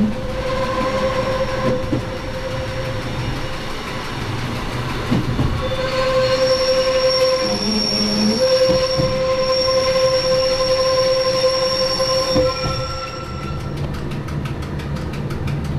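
Rhaetian Railway metre-gauge train running downhill on tight curves, its wheels squealing in a steady high tone over the rumble of the running train. The squeal is strongest from about six to twelve seconds in and stops at about thirteen seconds, leaving the running noise.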